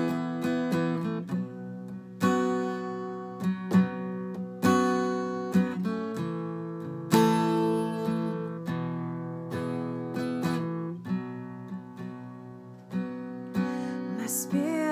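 Acoustic guitar strummed in slow chords, each struck and left to ring, playing the instrumental part of an unfinished original song. A voice starts singing near the end.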